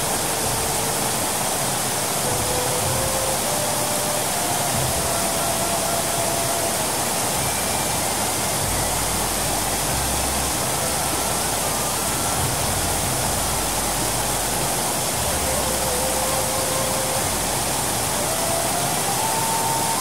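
Steady rush of a waterfall plunging into a rock pool: a dense, even hiss of falling water. A faint, slow tune of single held notes that step up and down sits underneath it.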